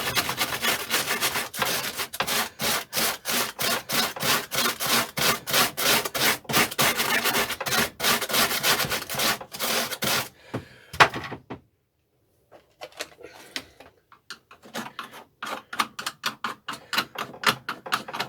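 Hand wire brush scrubbing hard on a steel mower deck, fast back-and-forth strokes about three a second, clearing muck off the engine mounting bolt heads. About ten seconds in there is a sharp knock and a brief pause, then lighter scrubbing resumes.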